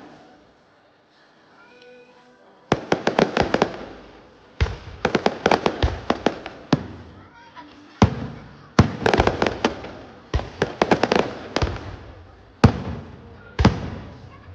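Aerial fireworks going off in rapid volleys of sharp bangs and crackles, each volley lasting a second or two with short pauses between. After a lull at the start, the volleys come about every two seconds.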